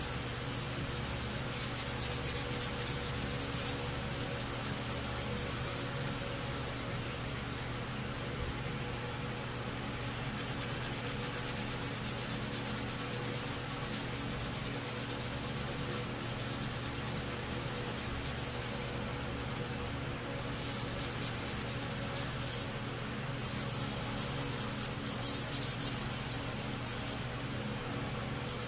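Dry hand sanding of aerosol primer on a small plastic model hood, using an abrasive sheet on a foam hand pad: a continuous scratchy rubbing from back-and-forth strokes, its hiss swelling and falling away every few seconds.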